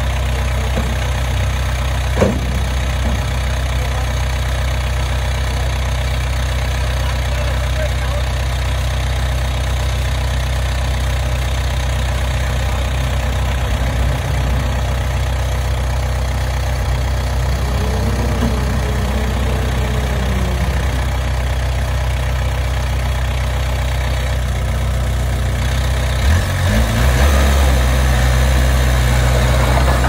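Komatsu D21P small crawler bulldozer's diesel engine running steadily while it pushes sand, with a single sharp knock about two seconds in. Near the end the engine gets louder and its low note changes.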